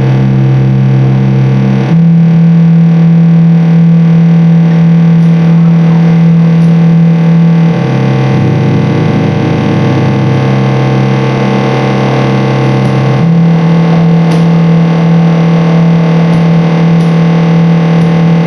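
Loud distorted electronic noise music played live: a dense wall of noise over a sustained low drone that shifts to a new pitch every few seconds.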